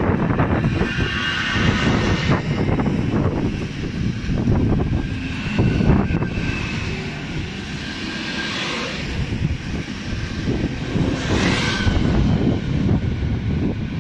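Škoda Vagonka 10Ev InterPanter electric multiple unit pulling out past the platform: a steady rumble of wheels and running gear with traction-motor drone, and brief high squeals a few times.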